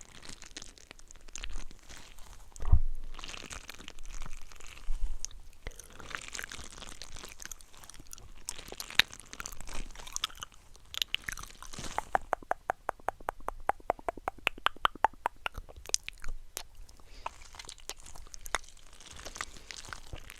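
ASMR mouth sounds close to the microphone: wet clicks, smacks and tongue sounds, with a fast, even run of clicks lasting about four seconds past the middle.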